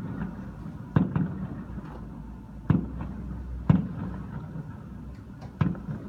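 Fireworks shells bursting at a distance: about six sharp bangs at irregular intervals, two of them in quick pairs, over a steady low rumble.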